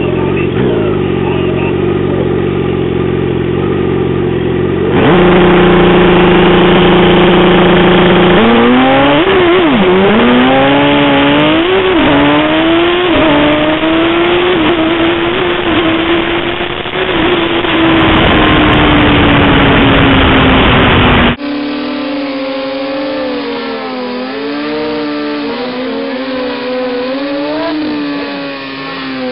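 Drag-racing motorcycle engine idling, then held at high revs on the start line. It launches down the strip with the pitch climbing and dropping back at each gear change. After a cut, the engine revs up and down during a rear-tyre burnout.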